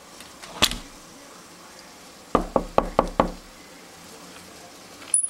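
Knocking on a closed interior door: a single knock about half a second in, then a quick run of five knocks a little over two seconds in, and a couple more near the end.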